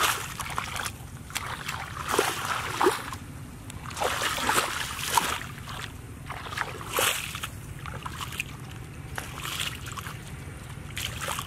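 Bare feet wading through shallow muddy water, with a splash and slosh at each step, about one a second and uneven in strength.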